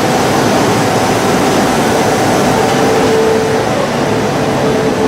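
Electric commuter train running at the station platform: a loud, steady rushing noise with a faint hum.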